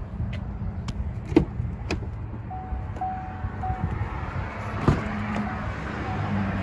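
Rear door of a Chevrolet Silverado 5500 HD crew cab latching open with a sharp click about five seconds in, after another sharp click a second or so in. A steady low rumble runs underneath, and a faint held tone comes and goes from about halfway.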